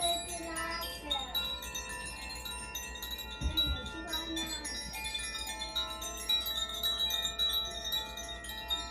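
Makino-style Advance Chimes being played: many tuned chime tones struck one after another and left ringing over each other. A short low thump sounds about three and a half seconds in.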